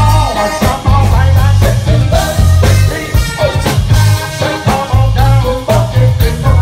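Live funk band playing, with trumpet, electric bass, keyboards and drums. A heavy bass line repeats under a steady drum beat, with horn lines above.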